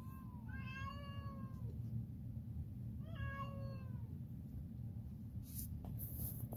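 Domestic cat meowing: two long, drawn-out meows about two seconds apart, each rising and then falling in pitch, with a fainter one at the start. A couple of brief rustles come near the end.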